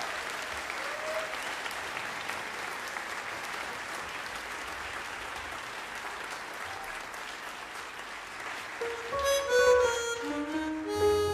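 Concert audience applauding. About nine seconds in, a chromatic harmonica starts playing a melody over the clapping, and low accompaniment notes join near the end.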